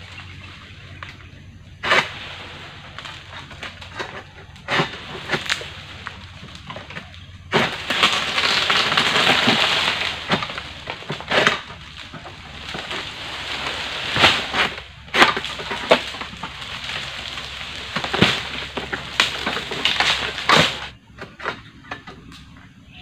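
An egrek, a long-poled oil palm sickle, cutting overgrown drooping fronds: sharp cracks and snaps as the blade bites and tears through the tough frond stalks. About eight seconds in there are a few seconds of loud rustling and tearing as a cut frond breaks loose and drops through the leaves.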